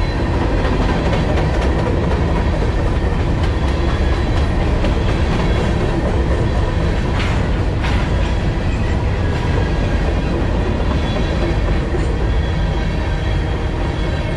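CSX covered hopper cars of a grain train rolling past close by: a steady loud rumble of steel wheels on rail, with repeated clicking as the wheels cross rail joints.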